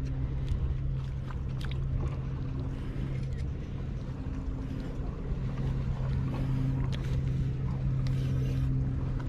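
A boat engine running steadily on the water: an even low drone that holds through, with a few light clicks over it.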